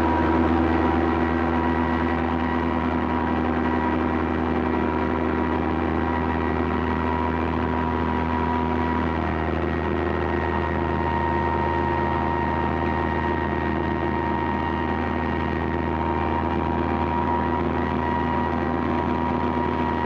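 Steamship whistle of the liner SS Southern Cross sounding one long, steady blast of several tones at once; one of the lower tones drops out about halfway through. Heard on an old newsreel soundtrack.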